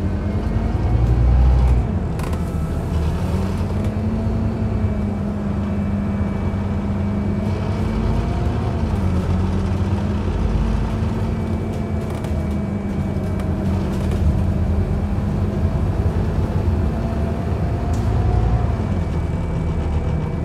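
Scania OmniCity bus's diesel engine heard from inside the saloon while the bus is under way. The engine note rises and dips several times as it pulls and eases off, with a louder surge about a second in and again near the end, over steady road noise.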